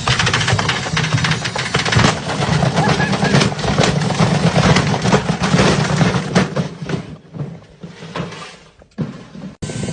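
Pressure washer running, a steady motor hum under the hiss of the water jet spraying onto stones; the sound falls away for a couple of seconds near the end.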